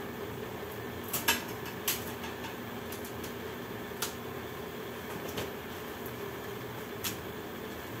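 Kitchen utensils and dishes clinking while ground beef is added to the kibbeh mix: a quick pair of sharp clinks a little over a second in, then single ones near two, four and seven seconds in. A steady hum runs beneath.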